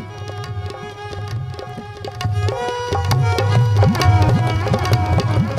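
Instrumental background music: drumming with low notes that glide upward, under a sustained melody. It gets louder about two seconds in.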